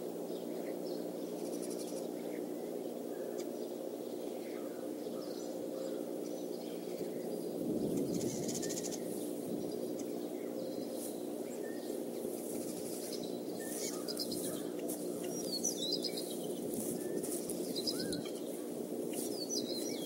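Small songbirds chirping now and then around the nest, with short high calls coming more often near the end, over a steady low hum.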